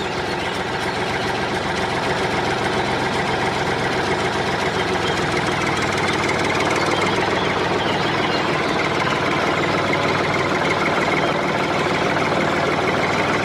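Engine running steadily with a rapid, even knocking chug, like a small tractor engine at idle.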